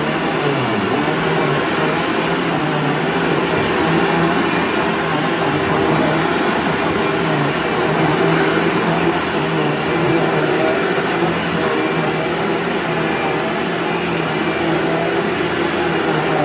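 Vacuum cleaner running steadily on a rug: a loud, even rush of air over a constant motor hum.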